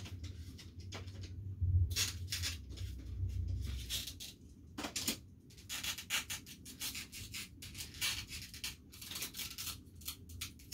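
Toy race cars and plastic track pieces being handled by hand: a string of short scrapes, rubs and light clicks, over a low hum for the first few seconds.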